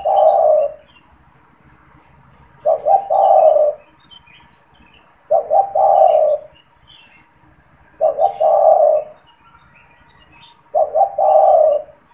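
Male spotted dove (tekukur) cooing: a phrase of two or three short notes running into a longer coo, repeated about every two and a half to three seconds, four full phrases plus the tail of one at the start.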